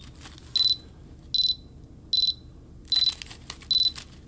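Backcountry Access Tracker 2 avalanche beacon in search mode beeping at a steady high pitch, five short beeps about 0.8 s apart. Over them, aluminium foil crinkles as it is squeezed tightly around the transmitting beacon, at the start and again more loudly near the end; the foil shields the signal the searching beacon picks up.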